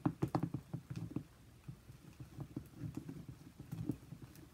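Spoon stirring glue slime in a plastic bowl, with quick, irregular taps and clicks of the spoon against the bowl. The mixture is clumping up as the laundry detergent activates it.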